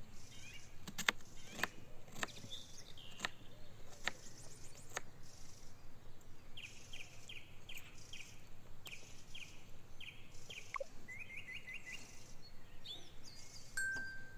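Songbirds chirping in quick repeated trills outdoors, with a handful of sharp clicks or knocks in the first few seconds and a clear ringing tone starting near the end.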